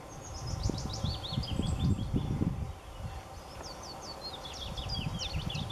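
A songbird singing two phrases of quick, high sliding notes, the first in the first half and the second near the end, over a low, irregular rumble.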